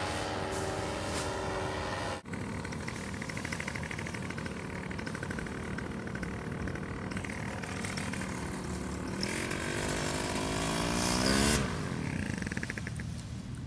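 Paramotor engine running, with a sudden break about two seconds in. Near the end it revs up, rising in pitch, then drops back abruptly.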